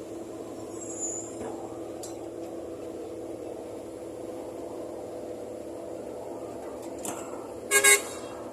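Steady engine drone, with a short, loud horn toot near the end.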